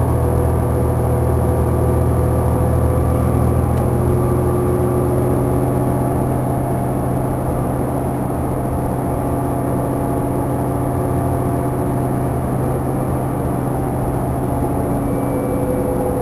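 Cabin sound of a 2009 New Flyer DE40LF hybrid transit bus cruising at highway speed: its Cummins ISL diesel and Allison EP40 hybrid drive make a steady low drone with several steady whining tones above it. The sound eases slightly about six seconds in.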